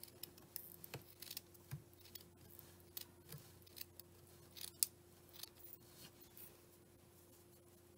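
Small sharp scissors snipping through cotton yarn fringe, a quick series of faint cuts that stop about six and a half seconds in.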